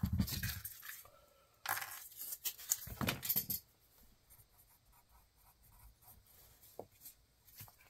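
A rustling clatter of small electronic components being handled and dropped into the compartments of a cigar box, lasting about two seconds, followed by faint pencil scratches and ticks on notebook paper.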